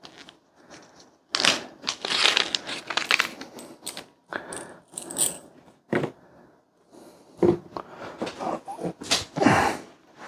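Small clear plastic hardware bags crinkling as they are handled and opened, with light clicks of small metal and plastic mounting parts, and one sharp click about six seconds in.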